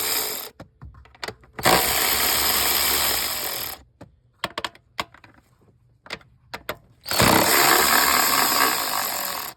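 Cordless power ratchet with a 10 mm deep socket running in three bursts, spinning out bolts: one burst ending about half a second in, a two-second run, then another two-second run near the end, with small clicks and taps in between.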